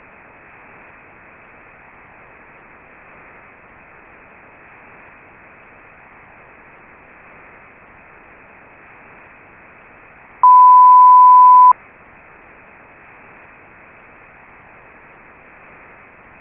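Steady broadcast static hiss, with one loud beep at a single steady pitch lasting just over a second, about ten seconds in.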